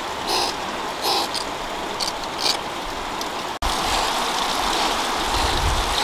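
Steady rushing of running water, with a few short hissy sounds in the first half. The sound breaks off for an instant at a cut partway through, then the water runs on.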